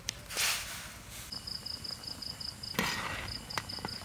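A cricket trilling in fast, even pulses on one high note, starting about a second in, with a short break near three seconds. Two short bursts of noise, about half a second in and near three seconds, are the loudest sounds.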